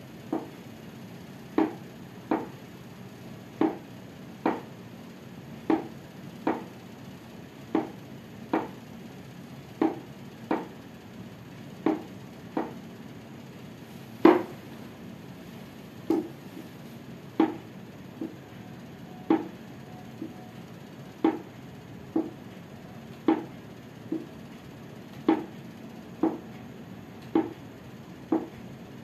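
Hands patting a clothed knee in a steady rhythm: a soft slap roughly once a second, often in pairs.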